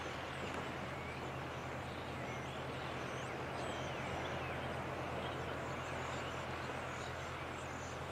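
Steady wash of waves breaking on the shore, with a steady low hum underneath and faint, high, thin chirping calls of small birds scattered through it.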